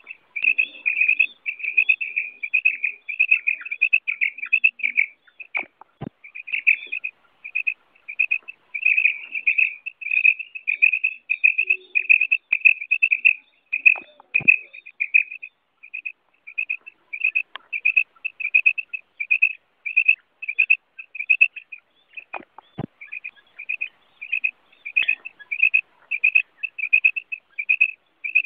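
Female common quail calling: short, high notes repeated in quick succession without a break, about two a second. This is the hen's call, played as a lure in quail hunting.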